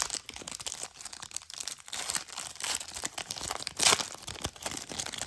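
Trading cards and pack wrapper being handled: dense rustling and crinkling with many small clicks, and a sharper snap at the start and another about four seconds in.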